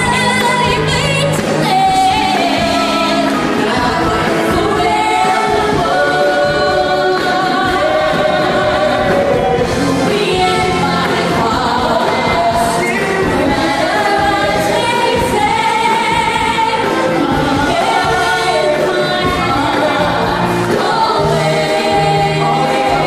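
Live stage-show pop-rock song: a woman sings into a handheld microphone over loud, amplified backing music, with other voices joining in.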